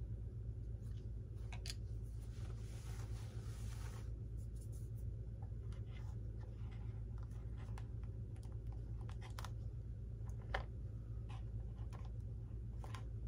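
Small clicks, taps and rustling from hands handling and pressing small parts into an RC model plane's cockpit section, with a brief scratchy rustle about two seconds in and a sharper click near the end, over a steady low hum.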